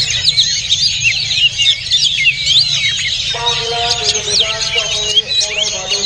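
Dense chorus of many caged songbirds chirping and whistling at once, an oriental magpie-robin (kacer) among them.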